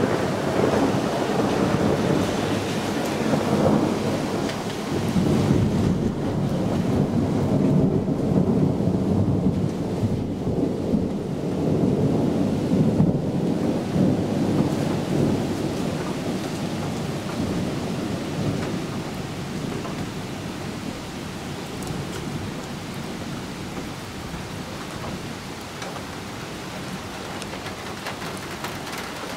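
A long rolling rumble of thunder over steady rain, fading after about twenty seconds and leaving the even hiss of the rain.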